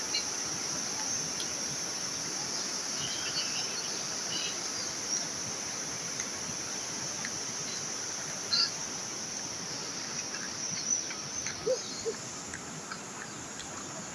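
Steady rain hiss under a continuous high insect drone, with a few short bird chirps scattered through.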